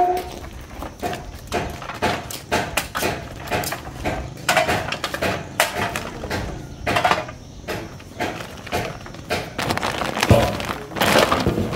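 Woven plastic sacks and a plastic bag rustling and crinkling as they are handled, with plastic bottles knocking together as they are sorted by hand: a close, irregular string of crackles and small knocks.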